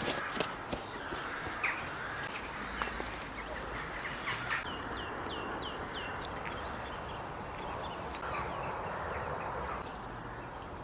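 Birds calling, with a quick run of short, falling chirps about halfway through and a few more chirps later, over a steady low outdoor rumble. A few sharp clicks sound at the very start.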